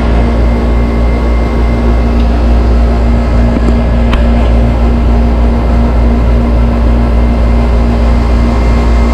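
R22 air-conditioning condenser running: a steady low hum from the compressor under the rush of the condenser fan, with a couple of faint clicks.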